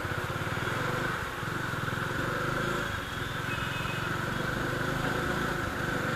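Motorcycle engine running with a fast, even low pulse while riding, with wind and road noise over it; the engine sound dips briefly about a second in and again near three seconds.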